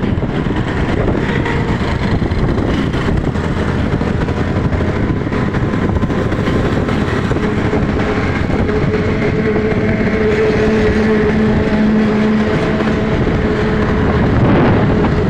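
Riding on a motorcycle through traffic: steady rush of wind on the microphone over engine and road noise. A steady hum from a vehicle alongside joins for a few seconds in the middle.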